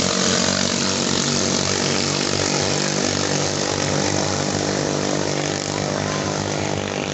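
Small 6.5–8.5 HP single-cylinder racing boat engines running flat out as longtail boats race past, a steady high-revving buzz that fades slightly as they speed away.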